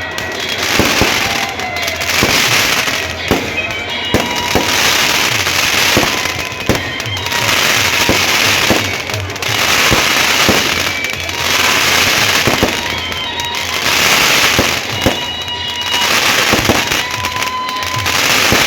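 Fireworks going off continuously: dense crackling with many sharp bangs, swelling in waves about every two seconds, with thin whistling tones among them.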